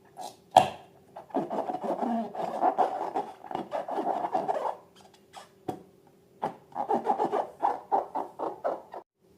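Rubber balloons rubbing and squeaking as they are handled, in two stretches, with a sharp click at the start and another in the middle.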